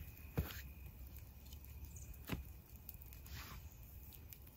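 Large carbon-steel Skrama 240 knife cutting into a wooden stick: two sharp strokes about two seconds apart, then a softer scrape.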